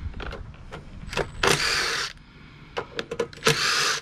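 Socket ratchet working the small bolts on a Tecumseh engine's front cover: scattered metal clicks and two short rasping bursts of ratcheting, about two seconds apart.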